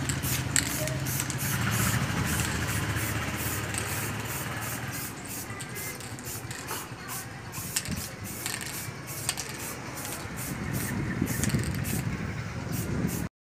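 Aerosol spray-paint can spraying a bike frame in many short hissing bursts.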